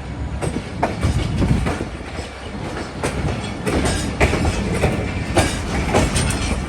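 Passenger train running, heard from inside a carriage: a steady low rumble of the wheels with irregular clatter and knocks from the rails and the coach.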